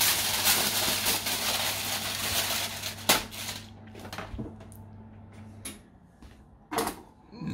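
Aluminium foil being crumpled into a ball by hand, crackling loudly for about three seconds, then a sharp knock and a few lighter clicks as things are set down on the counter.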